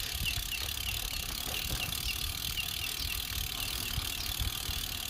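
Road bike's rear freewheel hub ticking rapidly and evenly as the bike coasts, about four or five clicks a second, over a low rumble of wind and tyres on a compacted dirt road.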